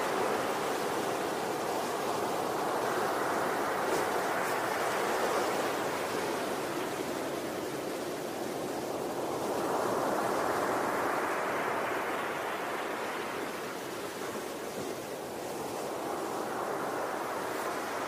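Sea surf breaking on a sandy beach: a continuous rushing wash of waves that swells louder three times as breakers crash and ebbs between them.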